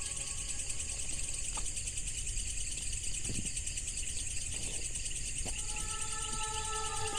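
Night insect chorus of crickets, a steady dense shrill trill. Several steadier lower tones under it drop out for a few seconds midway and then come back.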